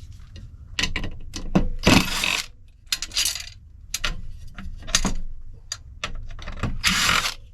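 Metal parts of a light fixture clinking and clicking as they are handled and pulled apart, with three short scraping rasps: about two seconds in, about three seconds in, and near the end.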